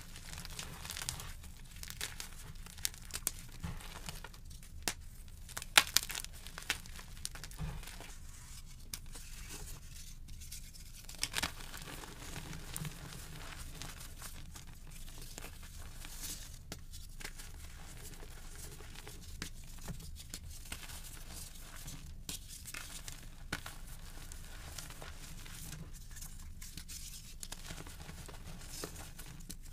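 Gym chalk being crushed and crumbled by hand: crisp crunching of chalk chunks breaking, with a few sharp cracks in the first dozen seconds. After that it turns to a softer, steady crumbling as loose yellow chalk powder is squeezed between the fingers.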